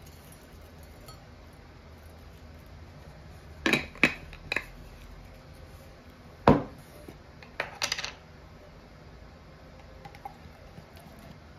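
Glass jars and a glass dish being handled on a wooden table: three light knocks about four seconds in, a single heavier knock, the loudest, a little after halfway, then a quick run of clicks soon after.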